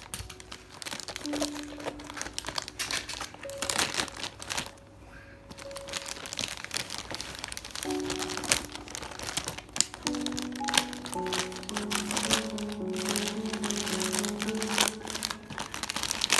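Packaging crinkling and rustling in irregular bursts as a parcel is handled and opened, over soft background music with held notes.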